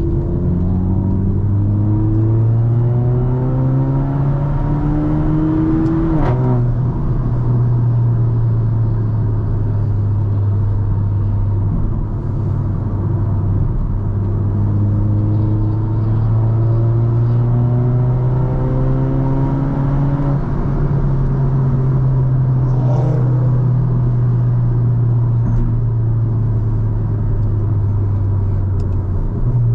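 Car engine and tyre-on-road noise while driving. The engine note climbs as the car accelerates, drops sharply about six seconds in, then runs fairly steady before climbing again between about fourteen and twenty seconds.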